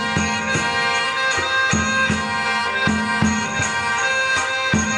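Background music: traditional folk music with a reedy wind instrument holding sustained chords over a steady drum beat.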